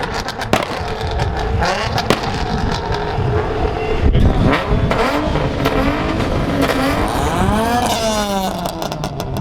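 Car engine revving at a car meet, its pitch dropping, then climbing and falling again in a rev near the end, with sharp pops in the first couple of seconds.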